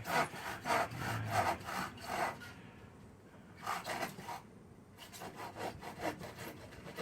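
Hand tenon saw cutting through a piece of wood in quick back-and-forth strokes, about four a second. The strokes come in three runs with short pauses between them, finishing the cut.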